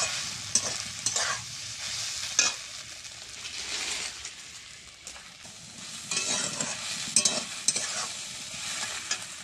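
Steel spatula scraping and turning soaked puffed rice in an aluminium kadai as it fries, over a steady sizzle. The scrapes come in clusters of strokes, with a busier run of them a little after the middle.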